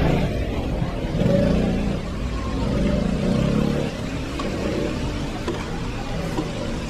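Delivery motor scooter, a Yamaha XMAX, revving as it pulls away up the wet street, its engine easing off after about four seconds. A steady hiss of rain and wet-street noise runs underneath.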